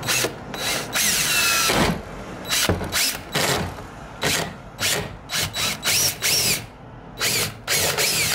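DeWalt 20V MAX cordless drill boring a pilot hole into a metal window frame: one longer run about a second in, then about a dozen short trigger pulses, the motor whine rising in pitch as it spins up each time.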